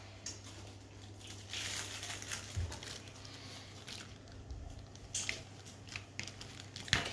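Faint crinkling, rustling and light clicks of hands working samosa pastry, over a low steady hum.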